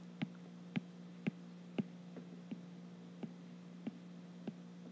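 Stylus tip tapping on a tablet's glass screen while lines are ruled across a table and symbols written: faint sharp clicks about every half second, over a steady low hum.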